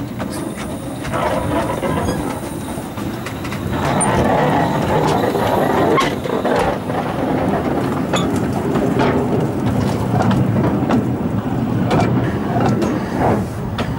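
Narrow-gauge steam locomotive and ballast wagons rolling past close by, the wheels clattering and clicking over the rail joints. It gets louder about four seconds in as the wagons go by.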